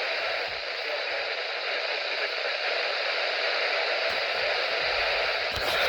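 Steady static hiss from a weather radio receiver during a pause in the NOAA Weather Radio broadcast's voice.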